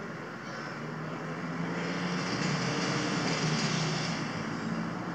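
A motor vehicle passing in the street, its engine hum and road noise swelling over a couple of seconds and then easing off.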